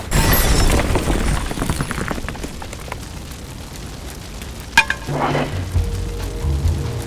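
A sudden loud blast with crackling that dies away over about two seconds, a sound-effect explosion. Near five seconds in comes a sharp crack, and music with low held notes starts.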